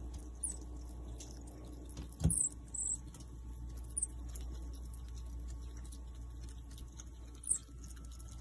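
Common marmoset giving short, very high-pitched chirps, about five of them spaced irregularly, one paired with a soft knock about two seconds in.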